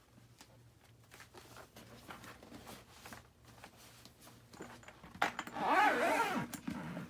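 Faint rustling and light knocks as a doll is handled into a pet carrier backpack. About five seconds in, a zipper is pulled along the edge of the carrier's clear plastic dome to close it, a louder rasping run of about two seconds.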